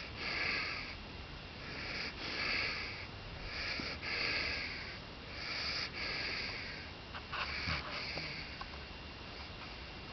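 Redbone coonhound puppy snoring in his sleep: a breathy snore about every two seconds. The snores die down over the last couple of seconds.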